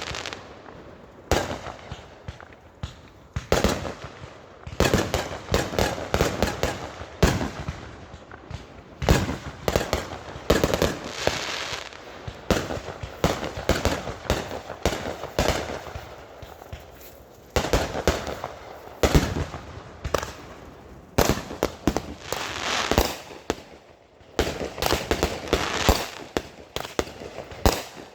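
Fireworks going off in irregular volleys: many sharp bangs and pops, each with a crackling tail.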